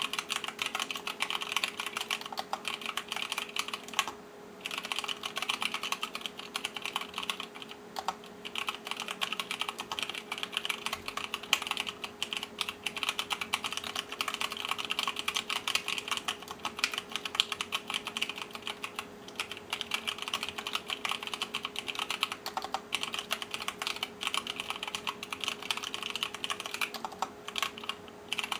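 Fast, continuous typing on an mStone Groove mechanical keyboard with Cherry MX Clear tactile switches on 65 g springs, the keys clacking in a dense stream with brief pauses about four and eight seconds in and again near the end.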